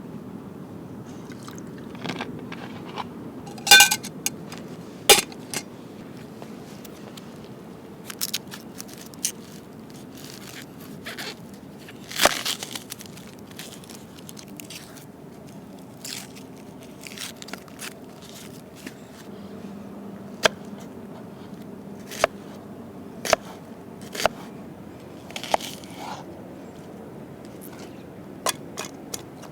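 Aluminium camp cookware being handled: scattered clinks, knocks and scrapes, one ringing metallic clink about four seconds in, over a low steady background.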